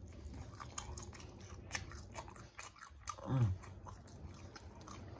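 Close-up eating of baked chicken: biting and chewing with many small wet mouth clicks and smacks. About three seconds in comes a short hum from the eater, falling in pitch.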